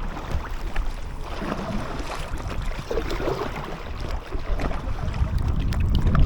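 Wind buffeting the microphone in a low, steady rumble, with choppy water lapping and splashing against an inflatable kayak.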